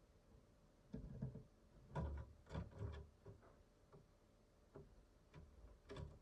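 Faint, irregular light taps and knocks: a cluster starting about a second in, a denser run around two to three seconds in, then a few single taps.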